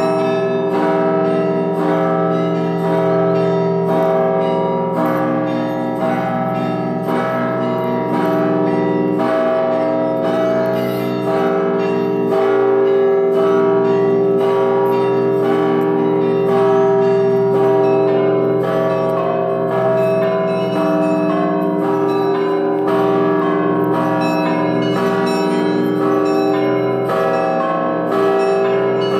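Russian Orthodox church bell ringing (zvon): several bells struck together, quick repeated strikes over deeper bells that ring on and overlap.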